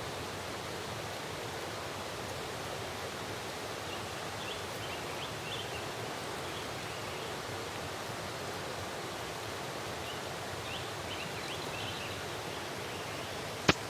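Steady jungle ambience: an even rushing hiss with faint, short high chirps here and there, and one sharp click near the end.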